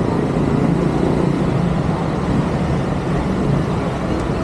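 Steady hum of street traffic from the city around the site.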